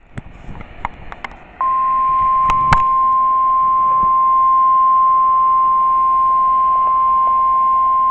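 NOAA Weather Radio warning alarm tone, a steady single-pitched tone near 1 kHz (the 1050 Hz alert tone) from a weather radio receiver. It comes on abruptly about a second and a half in, after a few crackles of radio static, and holds steady. It is the alert that heralds a warning-level broadcast, here a tornado watch.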